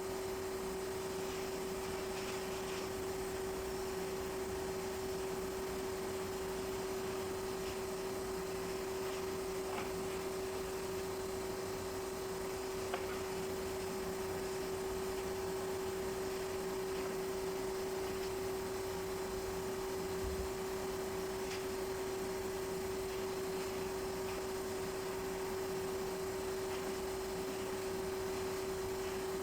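A steady hum held at one pitch, with a faint hiss and a few faint clicks.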